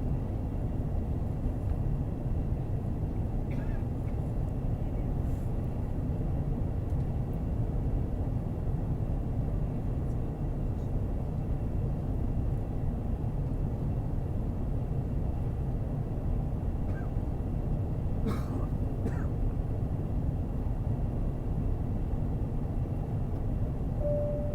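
Steady airliner cabin noise: an even, low rumble of jet engines and airflow at a constant level, with a couple of faint clicks about three-quarters of the way through.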